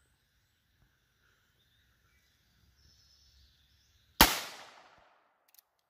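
A single .22 LR shot, a CCI Stinger hyper-velocity round, fired from a Heritage Barkeep single-action revolver with a roughly 2-inch barrel. It comes about four seconds in as one sharp crack, with an echo that dies away over about a second.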